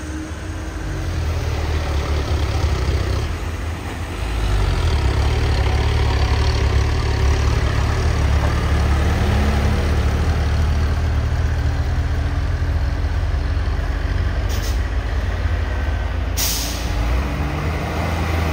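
Heavy truck's diesel engine running loud and steady on a hill, rising in level about four seconds in. Near the end, two short hisses of air brakes, the second longer.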